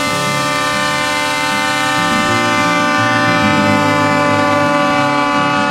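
A long, steady horn-like tone with many overtones, like a train horn sound effect, over a shifting low rumble.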